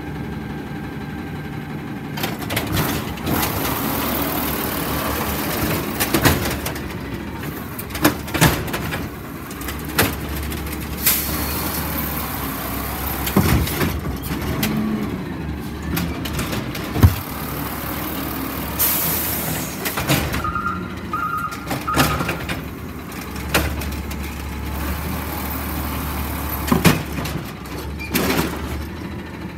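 Natural-gas Peterbilt garbage truck with an Amrep automated side-loader arm running while the hydraulic arm grabs, lifts and dumps green-waste carts: engine drone rising and falling with the arm's work, repeated clanks and bangs of carts and the gripper, a burst of air hiss about two-thirds of the way through, and three short beeps just after it.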